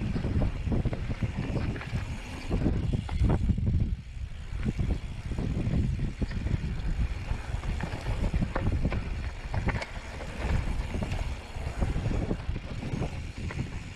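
Mountain bike descending a rocky dirt singletrack: wind buffeting the microphone in a steady low rumble, with tyres rolling over dirt and rock and many short knocks and rattles from the bike.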